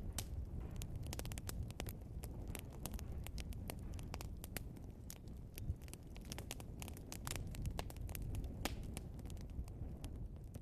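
Log fire burning, crackling and popping with many irregular sharp snaps over a low steady rumble of flames.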